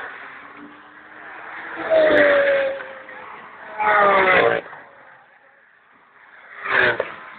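Orange Lamborghini's engine revving hard in three loud bursts as it drives through a coned course, about two, four and nearly seven seconds in, with the note sliding down in pitch as it lifts off between bursts.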